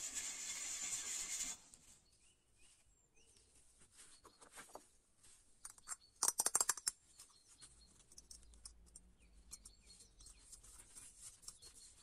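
Steel wool scrubbing the copper kettle's body, a steady hiss that stops about a second and a half in. Then quiet handling of the copper lid and its knob, small clicks and scrapes, with a short burst of sharp clicking about six seconds in.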